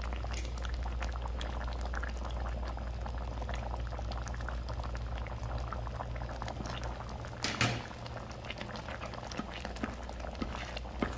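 Thick curry simmering in a pot, bubbling and popping steadily. About seven and a half seconds in there is one brief louder knock as flour is spooned into the pot.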